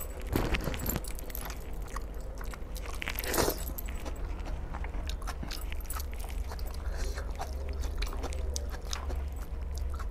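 Close-miked eating: fingers tearing broiler chicken pieces in thick curry and a mouth chewing and smacking, many small wet clicks scattered throughout, over a low steady hum.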